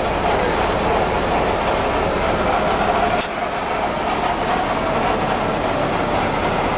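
1967 Volkswagen Beetle's air-cooled flat-four engine running, with a steady whine from the transaxle that dips slightly about three seconds in. The owner's father thinks the whine could be a worn throw-out bearing.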